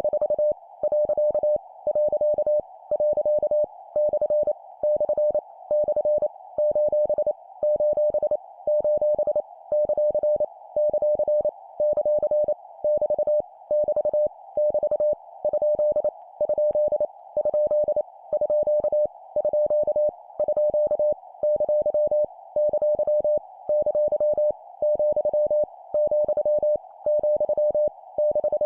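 Morse code (CW) practice tone: a single steady beep keyed in rapid short and long elements at 25 words per minute, sending punctuation characters, each repeated three times. The keying comes in quick groups with brief pauses between them.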